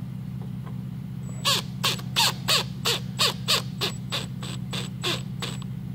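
A bird calling in a run of about a dozen short, harsh calls, about three a second, over a steady low hum.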